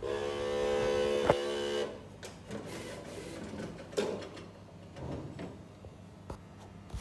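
XP600-head DTF printer running a test print: the carriage motor hums steadily for about two seconds with a sharp click partway through, then stops, followed by scattered clicks and knocks from the mechanism.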